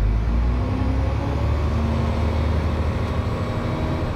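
Diesel engine of Stagecoach East Midlands bus 19044 running under way: a steady low rumble with engine tones that rise slightly in pitch.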